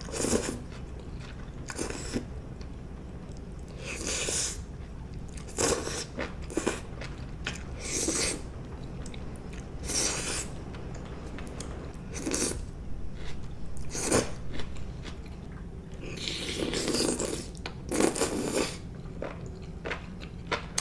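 Close-miked eating sounds from a bowl of noodle stew with bean curd and rice cakes: short chews and bites every second or two, with a longer run of them near the end.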